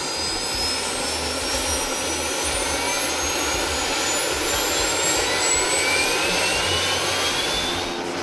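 Light turbine helicopter starting up: the turbine's whine rises steadily in pitch as the engine and main rotor spool up, over a steady rushing noise.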